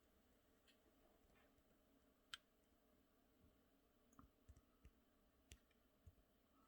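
Near silence with a few faint, scattered clicks and light taps from the hard plastic figure being handled.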